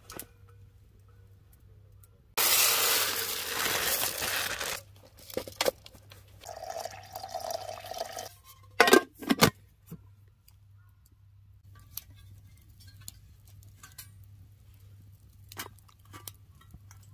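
Camp cooking handling sounds: a loud, abrupt rustling tear-like noise lasting about two seconds, then softer rustling, then a few sharp clinks or knocks near the middle, followed by small scattered ticks.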